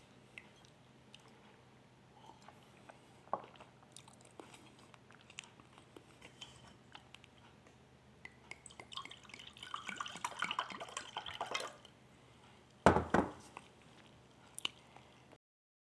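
Scattered small clicks, a few seconds of crackling rustle, then a loud thump about 13 seconds in. The sound cuts off to dead silence just before the end.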